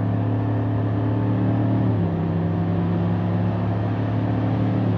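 A 2020 Chevrolet Silverado Trail Boss's 5.3-litre V8 pulling hard at around 4,000 rpm under heavy acceleration, heard from inside the cab. The 10-speed automatic upshifts about two seconds in, and the engine note drops a step in pitch before pulling on.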